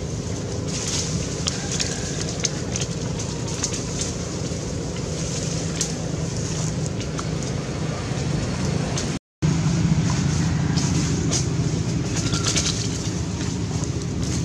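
Dry leaves crackling and rustling as macaques move and pick through leaf litter, over a steady low rumble. The sound drops out briefly about nine seconds in.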